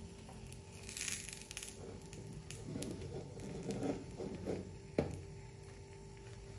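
Silicone spatula working under the edge of an omelette in a nonstick frying pan: soft scraping and shuffling against the pan, with a short hiss of frying oil about a second in. There is a sharp tap about five seconds in.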